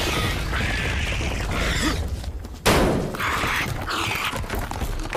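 Monster-movie creature sound effects: the giant snake's drawn-out hisses and growls over a low rumble, with a brief drop a little past two seconds and then a sudden loud surge.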